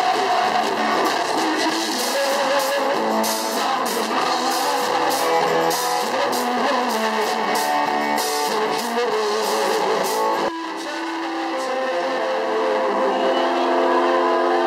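Live band playing amplified music, electric guitar over drums and cymbals. About ten seconds in the drums stop suddenly and held chords ring on.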